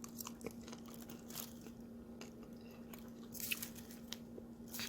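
A person chewing a mouthful of crunchy salad close to the microphone, giving soft, irregular crunches, with a faint steady hum underneath.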